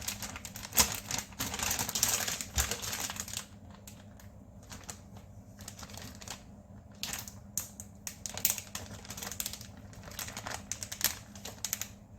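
Plastic zip-top bag of chicken and marinade being handled: dense crinkling and rustling for the first few seconds, then scattered clicks and rustles.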